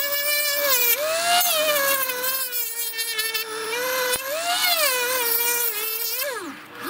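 Small electric motor whining as it spins a rubber sewing-machine friction wheel against 150-grit sandpaper, with a sanding hiss; the pitch sags and recovers several times as the paper is pressed on, and near the end it drops steeply as the motor slows.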